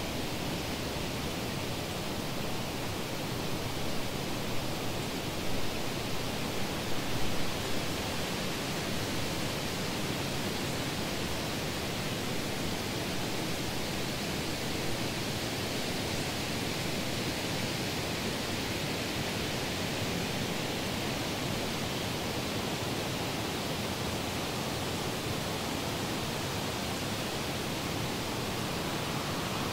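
A steady, even rushing hiss with no distinct events, a few slightly louder swells between about four and eight seconds in.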